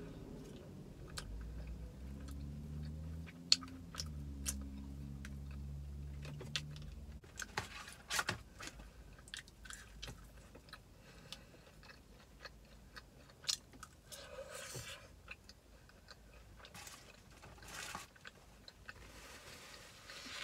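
Close-up chewing of a mouthful of baked beans, with wet mouth clicks and smacks and light clicks of a plastic spoon. A low droning hum underlies the first seven seconds and then cuts off, and a paper napkin rustles near the end.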